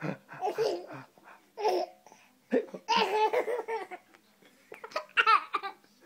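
One-year-old baby boy laughing hysterically in several bursts. The longest burst comes a little before halfway, and higher-pitched squeals follow near the end.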